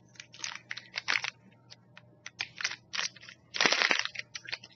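Snack packaging being handled, giving a string of irregular sharp crinkles and crackles, with one louder, longer crinkle lasting about half a second near the end.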